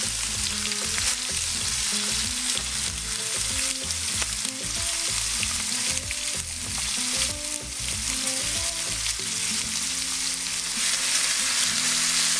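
Flour-dredged, stuffed chicken breasts frying in hot oil in a pan as they brown: a steady sizzle with scattered small pops and crackles.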